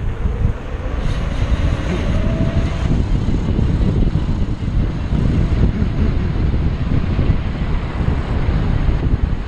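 Wind buffeting the camera microphone as a mountain bike speeds downhill on asphalt: a loud, steady low rush of wind noise, with a faint rising whine over the first few seconds.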